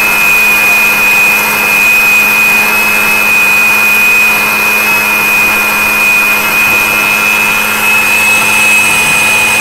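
Miyako 800-watt mixer grinder's motor running at full speed, grinding wheat grains to flour in its steel jar: a steady high whine over a lower hum and a rushing noise.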